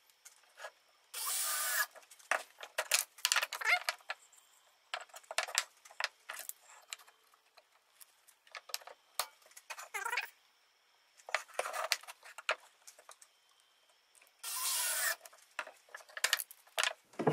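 Square wooden pieces scraping and sliding across a perforated MDF workbench top, with scattered knocks and clicks as the parts and a locking face clamp are handled. Two longer scrapes stand out, one about a second in and one near the end.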